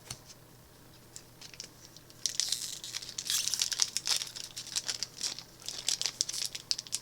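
Magic: The Gathering Mystery Booster pack's foil wrapper crinkling as it is torn open and handled. The crinkling starts about two seconds in and goes on in quick crackles.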